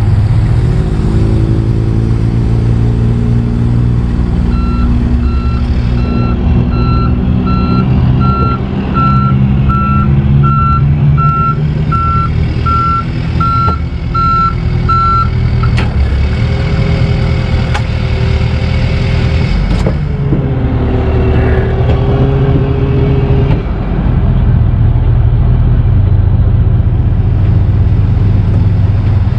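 Truck engine running with a back-up alarm beeping about every three quarters of a second while it reverses; the beeping stops about halfway through, and the engine speed then rises and changes for several seconds before settling back.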